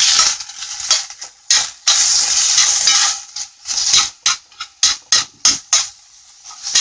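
Cubes of beef sizzling in a hot cast iron skillet as they are stirred, the sizzle coming in uneven surges. Short clicks and scrapes of the stirring utensil against the pan come through, more often in the second half.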